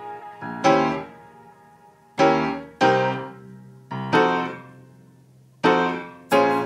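Background music: a slow run of piano chords, each struck and left to fade out before the next.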